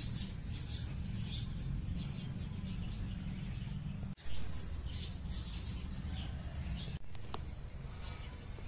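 Small birds chirping again and again over a steady low rumble, the sound dropping out briefly twice.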